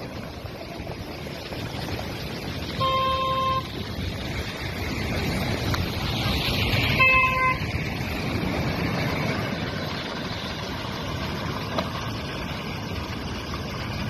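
Cyclone-driven surf breaking against a rocky seawall, a steady rush of waves with wind on the microphone. A vehicle horn honks twice, briefly, about three and seven seconds in.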